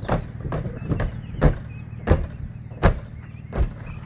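Repeated thumps of a person jumping on the sheet-metal roof of a Chrysler Town & Country minivan: about six heavy hits, a little under a second apart, over a steady low hum.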